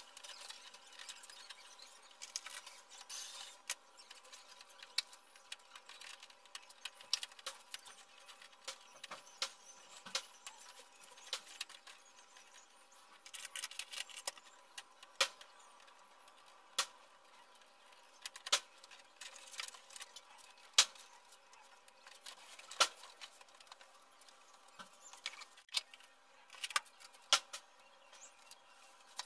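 Irregular sharp clicks and taps from hands handling and pressing along the edges of a large LED TV panel on a workbench, over a faint steady hum.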